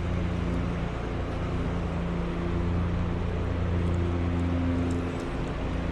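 An engine drones steadily as a low hum, its pitch holding nearly level.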